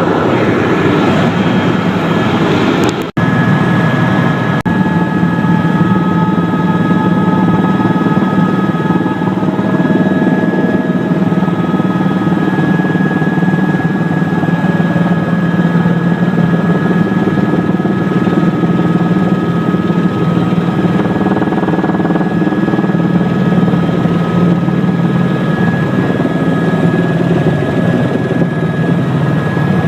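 Helicopter in flight, heard from inside the cabin: a steady, loud drone of engine and rotors with a low hum and a couple of steady high whining tones. The sound drops out for an instant about three seconds in.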